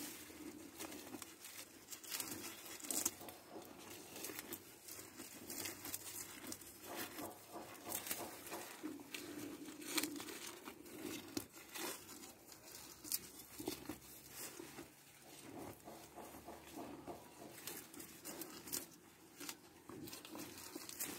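Young bull tearing off and chewing long grass leaves, an irregular run of ripping, crunching and leaf-rustling sounds.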